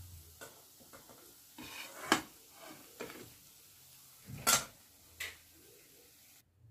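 A spatula scraping and knocking against a kadai and a ceramic plate as fried fritters are lifted out of the oil, a few separate clinks with the loudest about four and a half seconds in.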